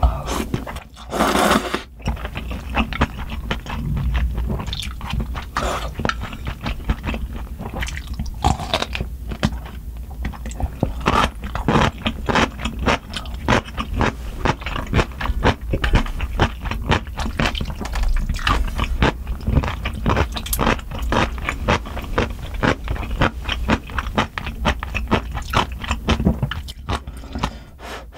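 Close-up eating sounds of soupy instant ramen noodles: a long slurp about a second in, then steady chewing with many quick, wet mouth clicks.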